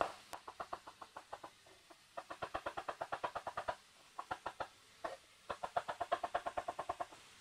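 Kitchen knife slicing garlic cloves into thin flakes on a wooden cutting board: quick, even taps of the blade on the board, about eight a second, in several runs with short pauses between them.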